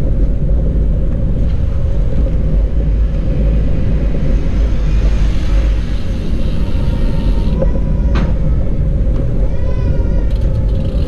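Wind rumbling on the microphone of a camera carried on a moving bicycle, with a steady hum underneath. A few faint wavering chirps come in the second half.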